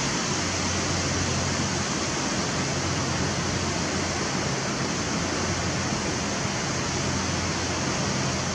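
Steady, even wash of ocean surf on the beach, with no breaks or separate events.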